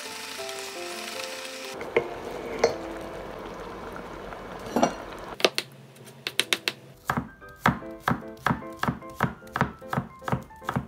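Chef's knife slicing garlic cloves on a wooden cutting board. A few separate knocks come first, then from about halfway a steady run of cuts, two or three a second. Soft background music plays underneath.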